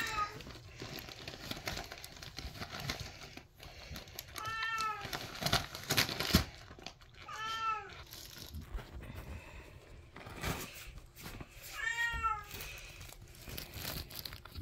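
Wrapping paper crinkling and tearing as a Samoyed noses and paws at a Christmas present. A second dog whines in protest about four times, each a short high whine that rises and falls.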